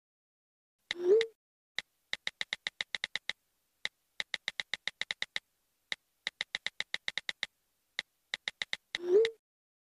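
iPhone on-screen keyboard clicks in quick runs as a text message is typed. A short rising message whoosh sounds about a second in and again near the end.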